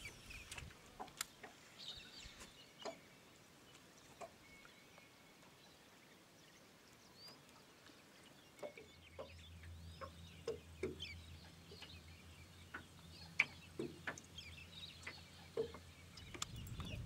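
Faint scattered bird calls and small clicks. About nine seconds in, a low steady hum starts: the boat's Minn Kota electric trolling motor running.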